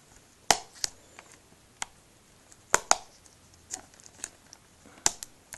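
Fingers and nails picking at the edge of a plastic Blu-ray case, trying to pry it open: irregular sharp plastic clicks and taps.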